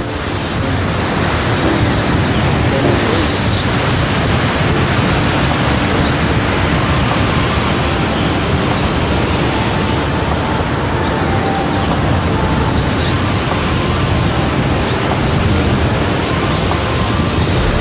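Steady, loud rush of falling water from a tall waterfall, an even wash of noise with no letup.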